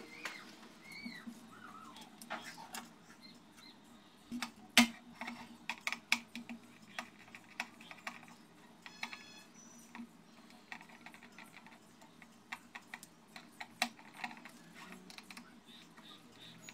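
Irregular small metallic clicks and taps of screws and a screwdriver being handled on a hard drive's metal cover, with one sharper click about five seconds in.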